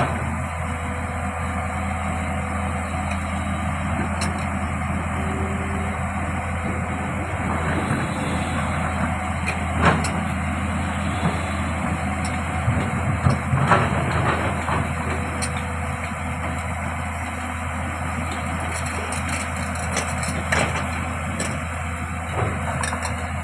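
Komatsu hydraulic excavator's diesel engine running steadily while working, with a few sharp knocks standing out around the middle and near the end.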